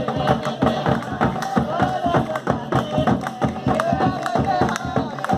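Batuque folk music: hand drums beating a fast, steady rhythm, with a wavering sung or played melody over the top.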